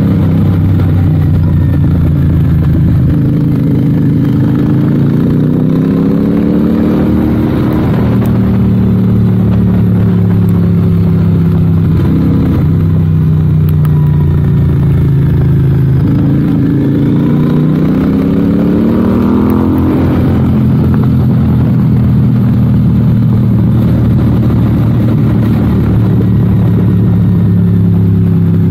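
Royal Enfield 650 parallel-twin engine running under way, heard from the bike itself. Its pitch climbs twice as it accelerates through the gears, with a short dip about twelve seconds in at a gear change.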